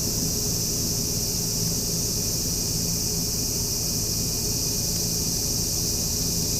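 Steady outdoor ambience: an even, high-pitched insect chorus over a low steady hum, with no sudden events.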